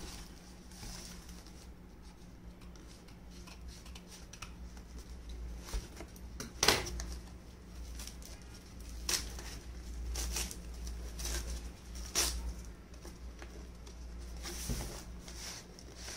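Scissors and hands opening a taped cardboard book parcel: snips, tearing and crinkling of cardboard and packing tape in scattered sharp bursts, the loudest about a third of the way in. A faint steady low hum runs underneath.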